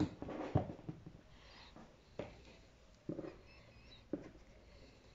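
A few light, separate knocks and clicks of tools and small carburettor parts being handled on a workbench, spaced roughly a second apart.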